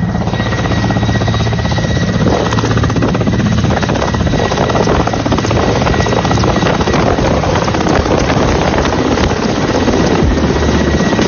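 Military helicopter running on the ground at close range, rotor turning and turbine engines at speed: a loud, dense rotor noise with a steady high whine over it.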